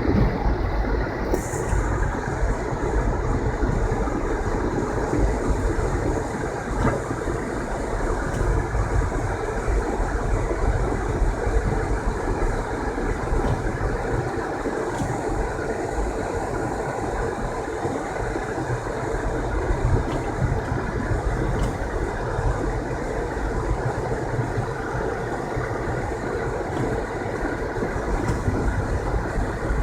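A car driving on a snowy road: a steady rumble of engine and tyre noise.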